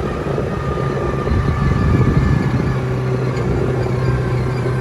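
ATV engine running steadily while being ridden, a constant low hum.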